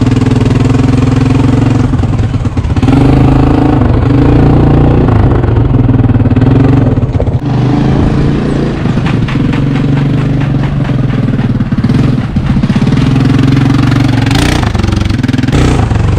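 ATV engine running, the throttle opened and eased a few times so its pitch and level shift and dip briefly.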